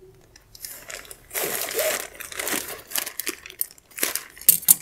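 Plastic courier mailer bag crinkling as it is handled and opened by hand, with a few sharp snaps near the end.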